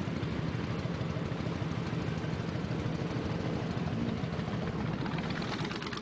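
Touring motorcycle's engine idling steadily, heard from its pillion seat.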